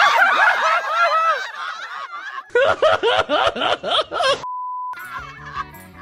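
A group of people laughing loudly together on a count of three, several voices at once. Near the end, a short steady bleep tone briefly replaces all other sound.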